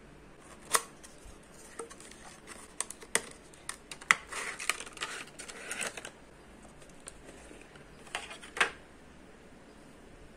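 A perfume box being opened by hand and the glass perfume bottle slid out of its white insert: scattered sharp clicks and taps with a stretch of packaging rustle in the middle, a sharp click about a second in and two more near the end.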